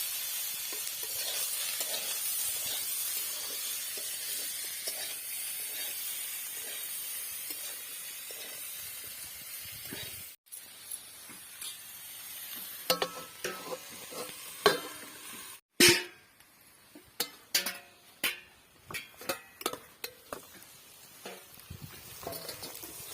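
Dry fish curry frying in a pan with a steady sizzle for the first ten seconds or so. After a break, a stirring utensil clinks and scrapes against the pan in a run of short knocks.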